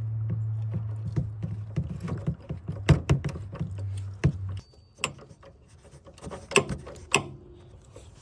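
Hand tools and metal parts clicking and knocking while the engine mount's cap is fitted onto its stud. A steady low hum runs under it and cuts off suddenly about halfway through.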